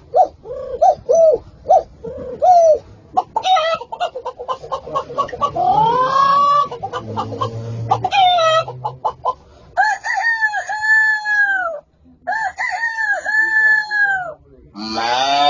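Animal calls: a string of short repeated notes and rapid pulses, then two long held calls of about two seconds each, and a louder, lower call beginning near the end.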